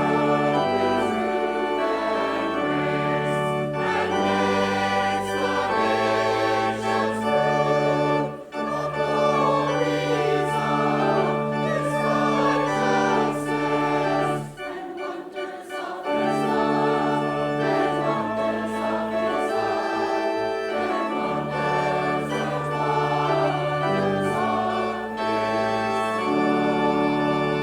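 Church organ playing a hymn with voices singing along, sustained chords over a bass line that moves every second or two. The music ends at the very close.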